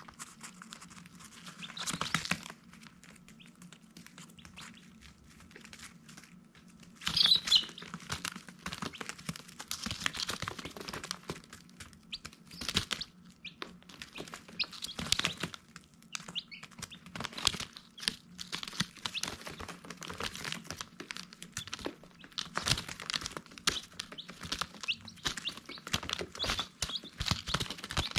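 Baby chicks peeping: many short, high chirps, with scratchy clicks among them and a louder cluster of calls about seven seconds in. A steady low hum runs underneath.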